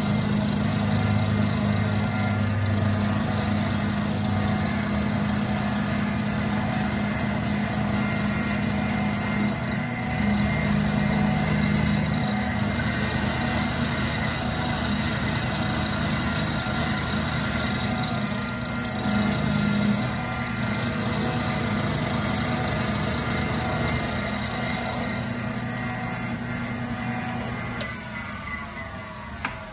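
Benchtop milling machine's spindle running steadily while an end mill makes a climb-milling pass across an aluminium block in the vise, a steady motor whine with several tones. Near the end the pitch falls.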